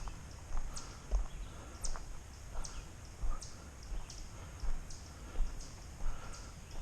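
A hiker's footsteps and trekking-pole tips striking rock in a steady walking rhythm: a sharp click with a soft thud about every two-thirds of a second.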